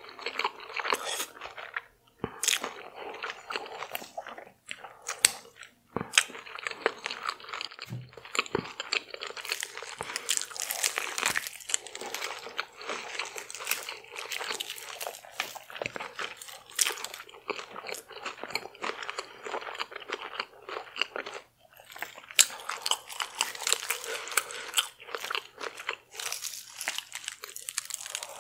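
Close-miked eating: crunching bites and chewing of deep-fried, Doritos-crusted seafood, with many sharp crackles and a few brief pauses.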